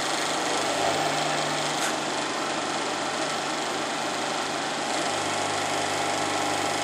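Jenn Wei JMY-series CNC turning-milling center running: a steady machine hum over an even hiss.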